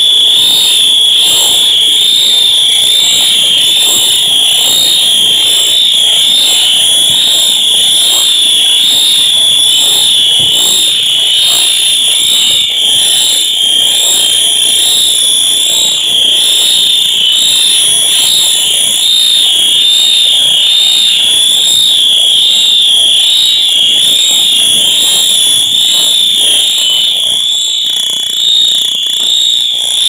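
Fire alarms sounding together: a loud, continuous high-pitched tone that wavers slightly about one and a half times a second.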